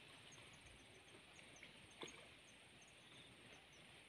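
Near silence with faint high-pitched insect chirping: a steady pulsing trill and short chirps repeating a few times a second. A single faint click comes about two seconds in.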